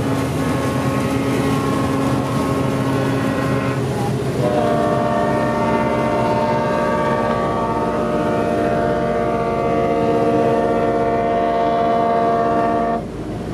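Tugboat horns blowing: one long blast ends about four seconds in, then a second, longer blast at a different set of pitches sounds and cuts off sharply near the end.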